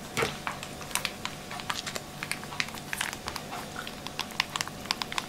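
Light, irregular plastic clicks and crinkles, several a second, from a soft mayonnaise pouch being handled and squeezed over a plastic bowl.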